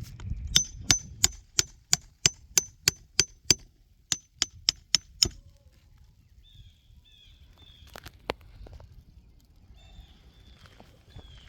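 Hammer striking metal in quick steady blows, about three a second, each with a bright metallic ring, likely driving a shingle-removal (snake) tool under a roof shingle. There are about eleven blows, a short pause, then five more, and two lighter knocks a few seconds later.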